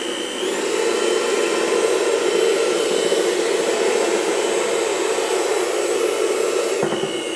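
Electric hand mixer running steadily with its beaters deep in a bucket of liquid soap, churning it to dissolve lumps. Its sound changes slightly about half a second in.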